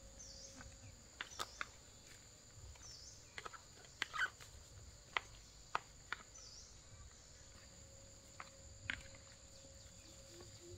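Faint, steady high-pitched chirring of crickets, with a few short falling squeaks over it. A scatter of sharp clicks and knocks, the strongest a cluster about four seconds in.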